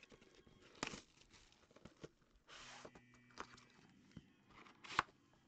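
Faint handling of a cardboard trading-card box: a short rustle of plastic wrap and a few light clicks and knocks, the sharpest knock near the end.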